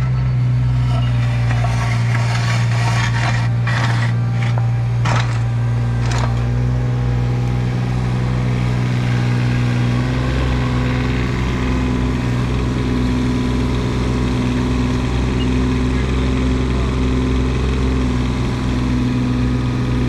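Mini excavator's diesel engine running steadily under working load while trenching, with a few knocks about 3 to 6 seconds in.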